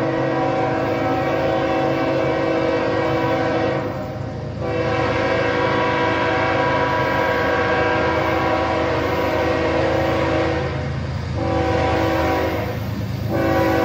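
Diesel freight locomotive's air horn sounding a chord of several notes as the train approaches, blown in long, long, short, long blasts: the standard signal for a grade crossing.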